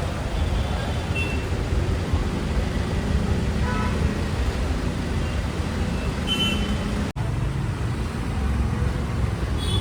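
Steady low rumble of road traffic and running vehicle engines, with a few faint, short high tones a few seconds in. The sound drops out for an instant about seven seconds in.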